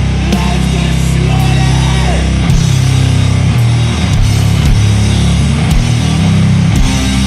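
Sludge metal: heavily distorted, low guitars and bass holding heavy sustained chords, with drum and cymbal hits about once a second.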